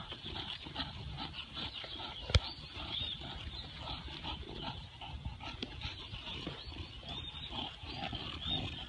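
English bulldog making dog noises as it tugs at a ball toy that a person holds. A single sharp knock comes a little over two seconds in and is the loudest sound.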